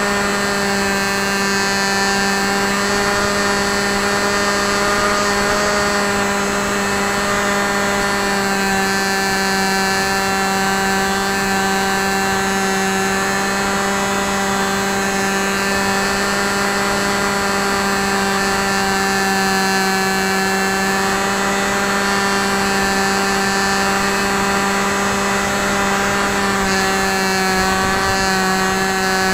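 Brushless outrunner electric motor (Hawking 2826, 2200 Kv) spinning a 6x4 APC pusher propeller in flight, heard up close from on board the plane. It gives a constant whine that holds a nearly steady pitch with a hiss of rushing air.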